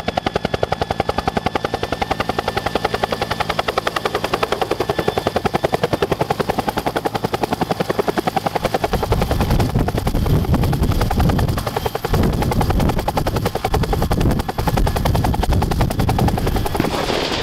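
Bell UH-1 "Huey"-type helicopter with a two-bladed main rotor hovering low and settling to land, its rotor beating in a fast, even chop. From about nine seconds in a deep rushing rumble joins as it comes down close.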